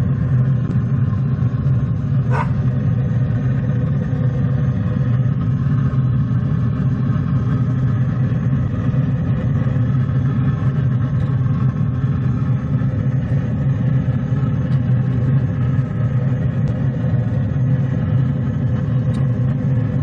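Pellet smoker's combustion fan running with a steady low hum, with a single light click about two seconds in.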